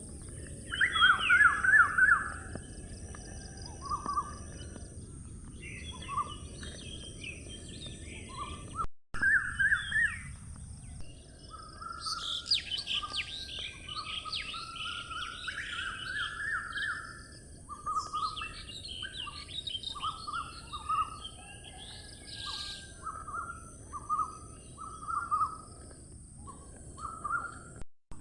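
Several birds chirping and trilling in many short calls over a steady high hiss and a low outdoor rumble; the sound cuts out for a moment about nine seconds in.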